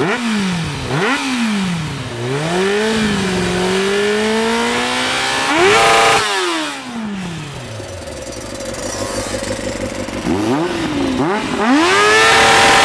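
Motorcycle engine revving up and down: a couple of quick blips, then a climb in pitch to a high rev about six seconds in that drops away, and another high rev near the end.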